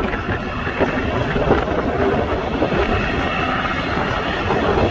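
Passenger airliner's engines running loud and steady, a dense rush of noise with a faint high whine in the second half.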